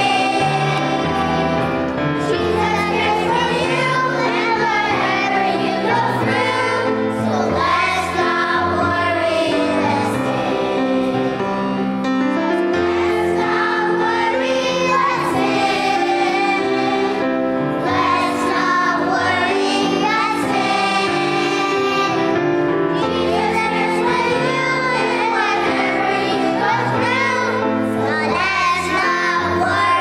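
Children's choir singing together over instrumental accompaniment, continuously and loudly.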